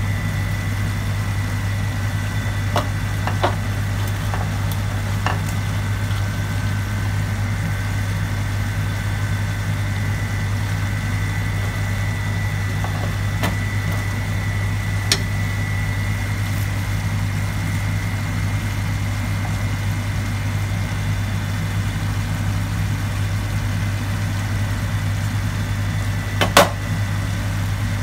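A steady low mechanical hum with a faint high whine over it, broken by a few soft clicks, the loudest near the end.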